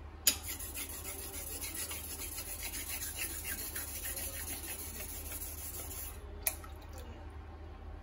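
Edo-style usuba knife edge rubbed quickly back and forth on a whetstone, putting on the small final edge bevel (kobatsuke). It is a hissing scrape of rapid strokes that starts with a sharp click, stops after about six seconds, and is followed by one more click.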